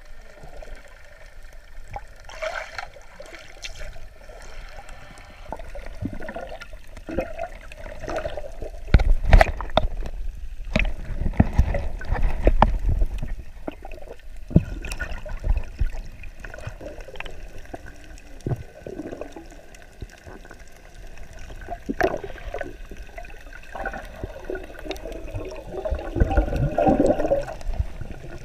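Muffled underwater sound heard through a GoPro's waterproof housing: water sloshing and bubbles gurgling, with irregular knocks and low thumps, loudest about nine to thirteen seconds in and again near the end.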